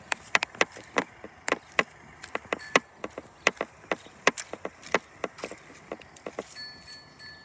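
A fast, irregular run of sharp clicks and knocks, about three or four a second, with a brief high steady tone near the end.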